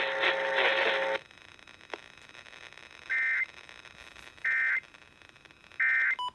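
The alert voice ends about a second in. Then come three short, equal bursts of warbling digital data tones, about a second and a half apart: the Emergency Alert System's SAME end-of-message code, which marks the end of the alert.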